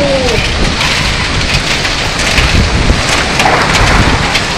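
Heavy storm downpour with hailstones striking hard surfaces: a loud, steady rush of rain dotted with sharp individual hits.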